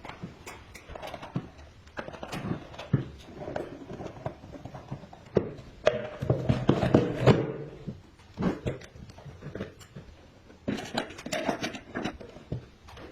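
Irregular knocks, clicks and clatter of hard objects being handled, with a louder, busier stretch about six to seven and a half seconds in.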